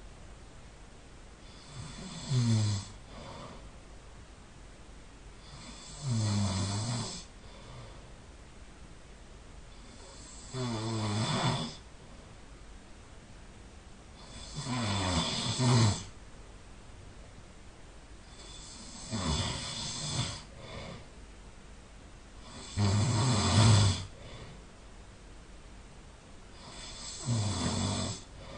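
A sleeping person snoring: seven snores, one about every four seconds, each lasting about a second.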